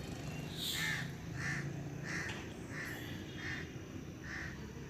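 A crow cawing repeatedly, about seven harsh caws evenly spaced roughly three every two seconds.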